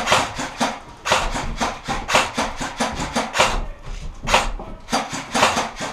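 Airsoft gunfire and BB hits: an irregular string of sharp cracks, several a second.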